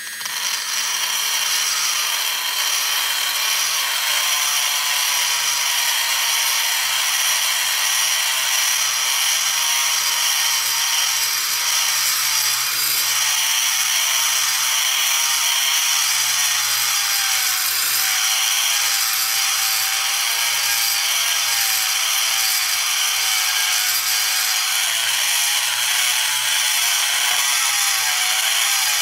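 Rotary tool grinding inside an aluminium intake-manifold runner while porting it. The motor whine drops in pitch over the first few seconds, then wavers up and down as the bit is pressed against the port wall.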